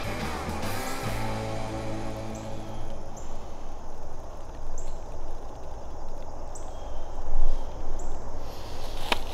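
Background music, fading back after the first few seconds, over uneven rustling and footsteps in the woods' leaf litter.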